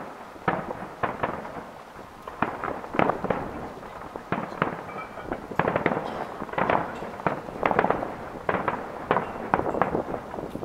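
Aerial fireworks shells bursting in a fast, irregular run of bangs and pops, several a second, with the loudness rising and falling.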